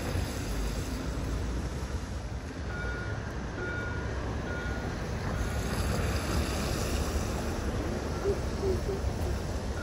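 Gothenburg tram running, a steady low noise with wind on the microphone and a few short, faint high tones now and then.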